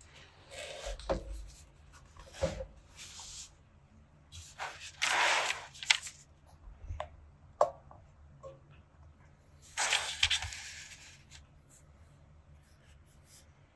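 Paper notebook being handled: a page turned and the notebook shifted, with paper rustling and sliding in three bursts, the loudest about five seconds in, and a few light taps between them.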